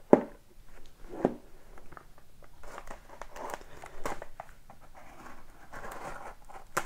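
Handling of a trading-card box and its packaging: a few sharp taps and knocks, the loudest near the end, between soft rustling and crinkling.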